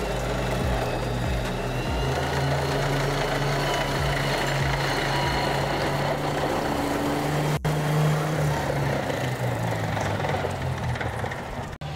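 Tracked light tank driving on a road, its engine running steadily, with background music over it.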